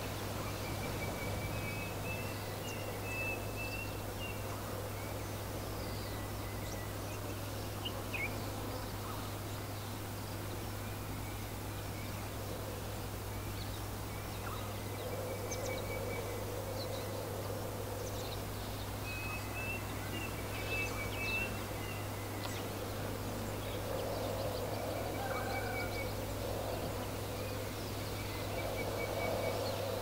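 Steady wind with songbirds chirping in short high phrases every few seconds. Lower warbling calls come and go in the second half.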